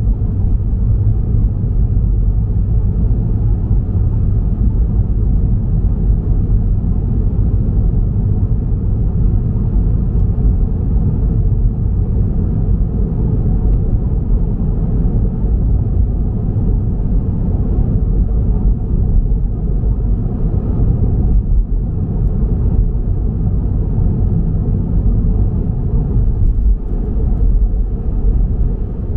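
Steady low rumble of a car being driven: road and engine noise with no distinct events.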